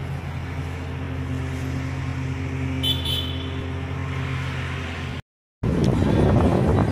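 A steady engine-like hum, with a brief high-pitched tone about three seconds in. It breaks off in a short dropout, followed by a louder, even rushing noise.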